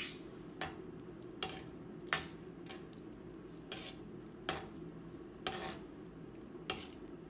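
Metal ladle clinking and scraping against a wok as it stirs sun-dried pork in coconut milk, about eight strokes at roughly one a second, over a low steady background noise.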